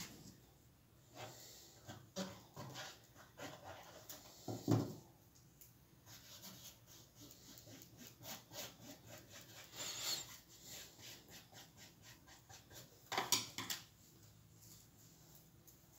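Small handling sounds of paper collage pieces and craft tools on a tabletop: scattered rustles and light taps, a dull knock about five seconds in, and a louder rustle of paper near the end.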